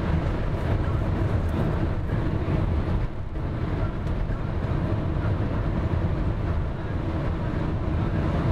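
A car driving along the road, heard from inside the cabin: a steady low rumble of road noise.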